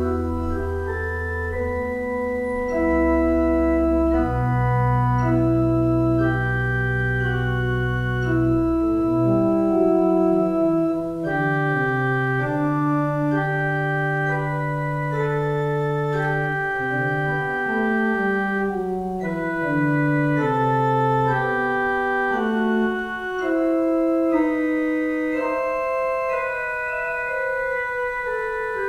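Organ playing a slow piece in long, sustained chords. Deep pedal notes are held beneath it until about nine seconds in, then drop out, leaving slowly moving chords and melody.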